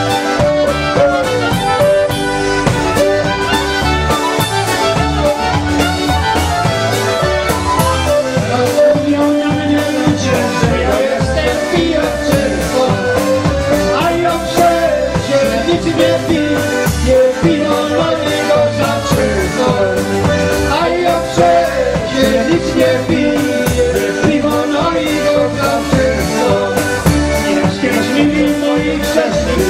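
Live polka band playing a polka with a steady beat, two men singing the vocal together into microphones over the band.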